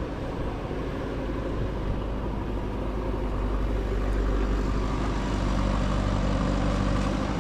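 An engine running steadily at a constant speed, a low even drone that grows a little louder about four seconds in.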